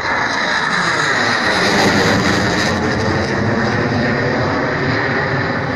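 MiG-21 LanceR fighter's turbojet engine roaring overhead during a low display pass: a loud, continuous jet roar.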